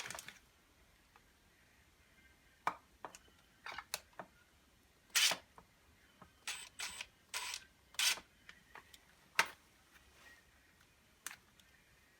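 Irregular clicks and short knocks of hard parts being handled on a Bosch GBH2-20S hammer drill under repair, about fifteen in all, a few of them drawn out into brief scrapes.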